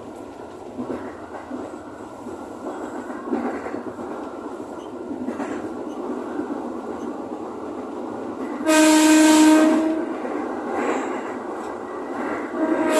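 An ex-JR 205 series electric commuter train running, heard from the driver's cab, with a steady rumble and occasional wheel knocks over rail joints. Its horn sounds for about a second about two-thirds of the way in, and again near the end.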